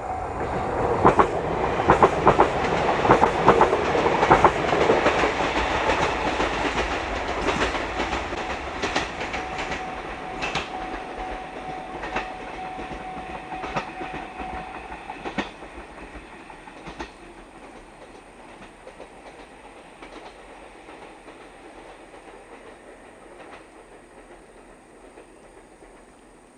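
JR East GV-E400 diesel-electric railcar passing over a level crossing, its wheels clacking over the rail joints, loudest in the first five seconds and then fading steadily as it moves away. A steady tone runs under it and stops about fifteen seconds in.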